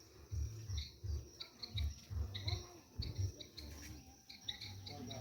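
Insects shrilling steadily on one high note, with short chirps over it and irregular low rumbles and thumps underneath.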